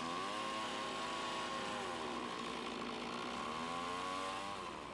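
Chainsaw engine running under load, its pitch falling over the first two seconds and climbing back as it works through the cut.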